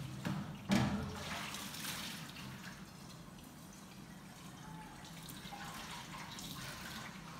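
Water splashing and sloshing as dishes are washed by hand in a metal basin, with one sharp knock of a dish against the basin just under a second in.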